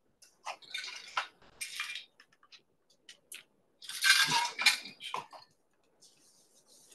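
Laptop being handled and typed on: irregular clattering, rustling noises and scattered key clicks, in two spells, the louder starting about four seconds in.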